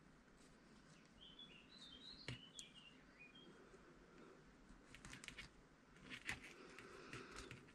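Near silence, with scattered faint clicks of metal knitting needles as stitches are worked.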